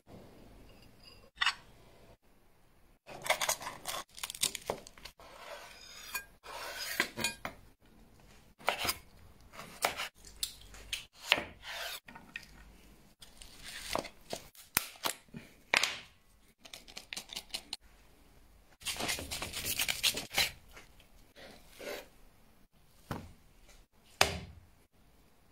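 Kitchen handling sounds: irregular clinks, taps and scrapes of a metal spoon and dishes, with a longer stretch of rubbing about two-thirds of the way through.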